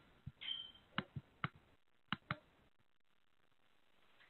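Faint scattered clicks on an open conference-call line, about seven in the first two and a half seconds, with a brief high beep about half a second in.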